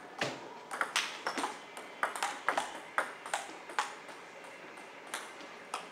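Table tennis ball clicking off rubber paddles and bouncing on the table in a fast rally, a quick run of sharp ticks. The ticks stop about four seconds in, with only a couple of scattered taps after.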